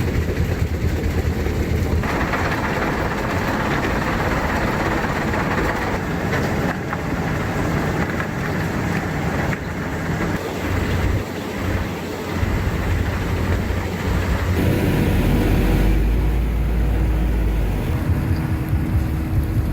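Heavy stone-crushing and screening machinery running, a dense rattling grind over a diesel engine rumble. The sound changes abruptly several times, and a deep steady rumble with a held hum stands out about three quarters of the way through.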